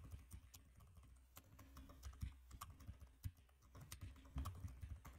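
Faint typing on a computer keyboard: irregular, scattered keystroke clicks.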